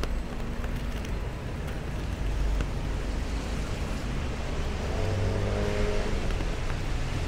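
Road traffic on a wet city street: cars and double-decker buses running by in a steady low rumble. A passing engine's hum stands out briefly about five seconds in.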